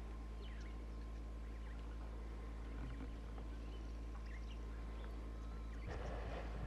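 Elephant bathing in a muddy waterhole, sinking down into the water with a brief burst of splashing about six seconds in. Under it runs a steady low hum, with scattered short bird chirps.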